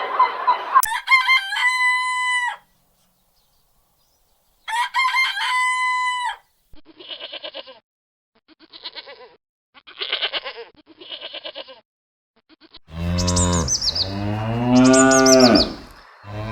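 Farmyard animal calls in sequence: a rooster crows twice, then a hen clucks in four short bursts, then a cow moos twice, long and low.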